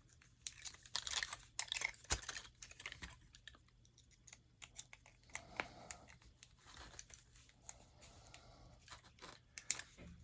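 Faint, irregular small clicks and scraping of a lock pick working inside the lock of a pair of Spanish-made handcuffs.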